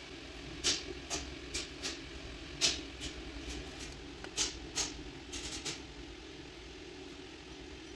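A dozen or so light, sharp clicks and taps at irregular spacing over a steady low hum, most of them in the first two-thirds.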